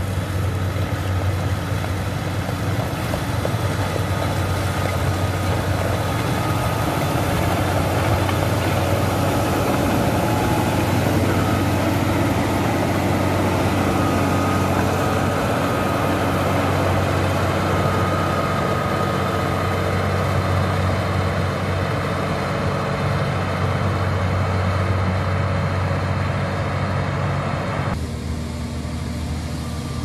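Caterpillar 140B motor grader's diesel engine running steadily as it pushes gravel with its blade, growing louder as the machine comes close. The sound drops suddenly about two seconds before the end.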